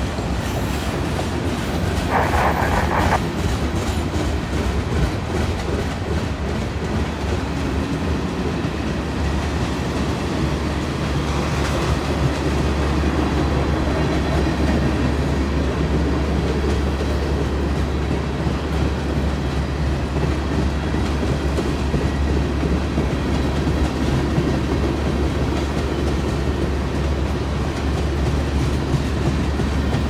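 A freight train's cars rolling past at close range: a steady rumble of steel wheels on the rails, with a brief burst of higher noise about two seconds in.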